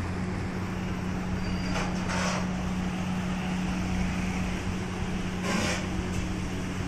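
Steady low mechanical hum with a constant tone, with two brief hisses, about two seconds in and again about five and a half seconds in.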